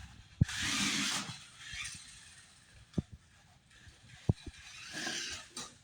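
A toy remote-control car whirring and spinning its wheels against a ramp in two spurts, the first and loudest about half a second in and a weaker one near the end. Several sharp plastic knocks come in between as the car gets stuck.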